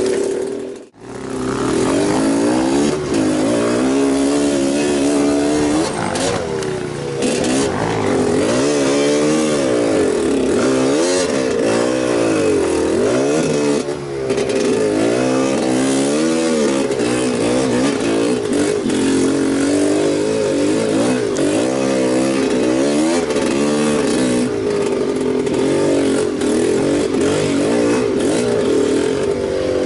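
Enduro motorcycle engine running under load and revving up and down, its pitch rising and falling every second or so as the throttle is worked. The sound cuts out briefly about a second in.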